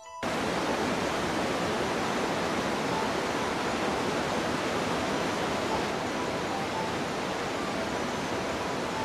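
Steady rushing of a mountain river at the foot of a gorge: an even, unbroken hiss of running water.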